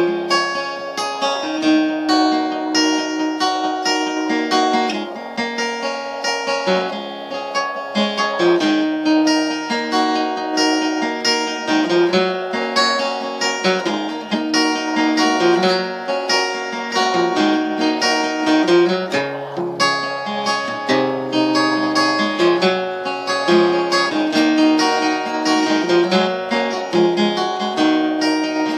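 Acoustic guitar with a capo, strung with .012-gauge (0.12 mm) strings, played solo: a continuous run of plucked notes and chords.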